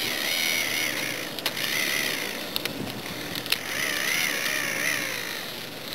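Small electric K'nex motor whining through plastic gears and track links, its pitch wavering up and down as the load changes, with three sharp clicks along the way.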